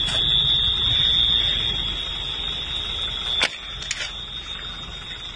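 Steady high-pitched electronic alarm tone sounding without a break, over low rumbling noise. A sharp knock comes about three and a half seconds in, and after it the rumble is quieter.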